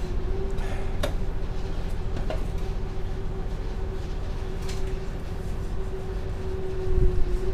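Motor ship's engine droning steadily: a low rumble under a constant hum, with a few light knocks.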